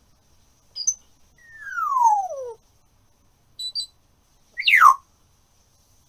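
African grey parrot whistling: a short high chirp, then a long whistle sliding down in pitch, two quick high peeps, and a fast downward whistle near the end.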